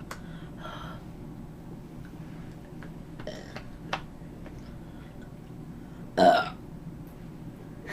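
A girl burping: one short, loud burp about six seconds in, with a few faint sounds before it.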